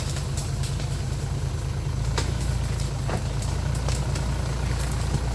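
Off-road 4x4 vehicle's engine running at low revs with a steady deep drone that changes and grows lower about two seconds in. A couple of short sharp knocks sound over it.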